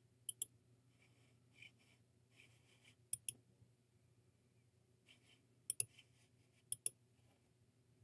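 Clicks of a computer pointing-device button, as menu choices and on-screen buttons are selected: four quick pairs of sharp clicks, each a press and release, with a few softer ticks between them. A faint steady low hum sits underneath.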